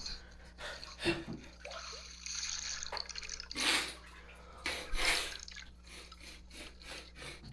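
Swimming-pool water noise, with two louder rushes of water about three and a half and five seconds in and scattered small drips and ticks.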